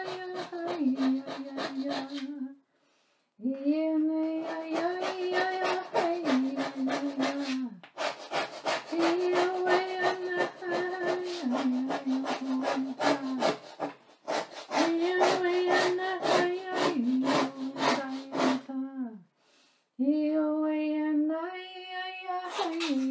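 A woman hums a slow wordless chant in long phrases of a few seconds each, the pitch stepping down near the end of every phrase, with short pauses in between. Under it, a pointed tool scratches rapid strokes as it carves lines into a black board.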